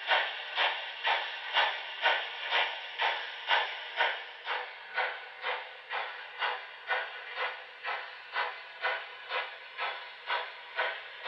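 Broadway Limited HO scale Southern Pacific GS-4 4449 model's DCC sound decoder playing steam exhaust chuffs through its small onboard speaker as the model runs: a steady chuff about twice a second with hiss between the beats, growing gradually softer.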